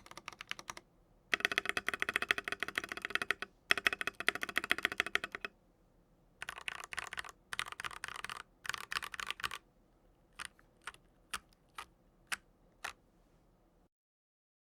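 Mechanical keyboard with linear switches being typed on: two fast runs of keystrokes, then six single key presses spaced about half a second apart, and then the sound cuts off.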